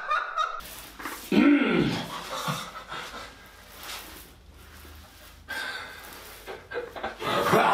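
A person's breathy, panting vocal noises, with one loud rising-and-falling cry about a second and a half in.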